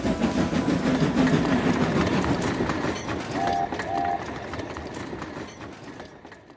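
Battery-powered Tomy Trackmaster toy trains running on plastic track, a steady motor noise with rapid clicking from the wheels, fading out near the end. Two short high tones sound a little past halfway through.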